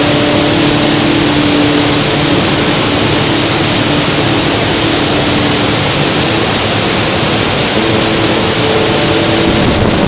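Large waterfall, its falling water making a steady, even rushing noise.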